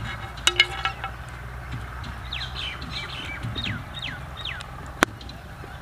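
Birds calling: a short harsh call about half a second in, then a run of five quick whistled notes, each falling in pitch. A single sharp click comes about five seconds in.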